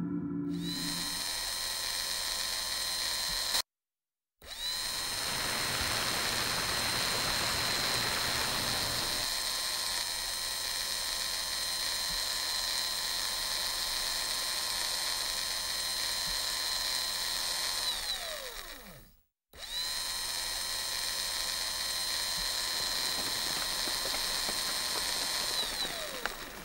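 Steady high electric-motor whine, a sound effect for the Phoenix Mars lander's moving mechanisms. It cuts off abruptly once after a few seconds, and later twice winds down with a falling pitch before starting up again.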